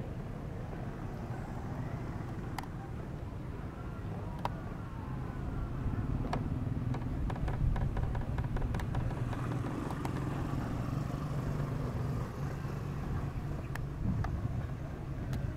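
Steady low outdoor rumble, with a few sharp clicks scattered through it and a short cluster of clicks about halfway.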